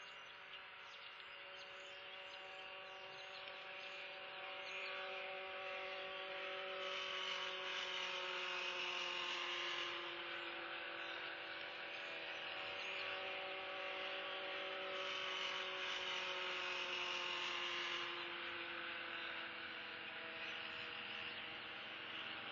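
A distant engine drone that swells and then eases off over about twenty seconds, its pitch slowly falling, like a vehicle or aircraft passing at a distance.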